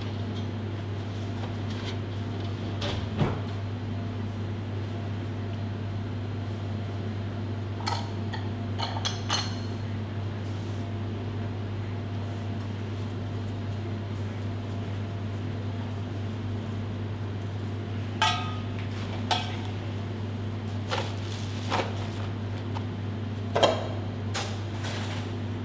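Scattered light clinks and taps of kitchen utensils against metal containers as skewered frozen gazpacho spheres are dipped into a metal cup of glaze and set down, over a steady low hum.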